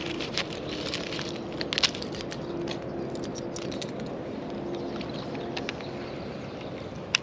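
Scattered crackling and clicking handling noise as weed is picked off a fishing lure and the rod and reel are handled, with a sharp click about two seconds in and another near the end.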